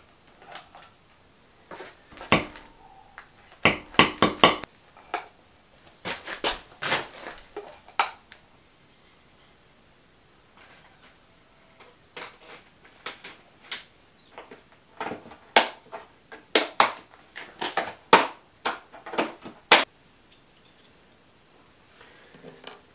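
Irregular clicks, knocks and light clatter of hands and tools working on a plastic ceiling light fitting and its cable, coming in clusters with short quiet gaps between.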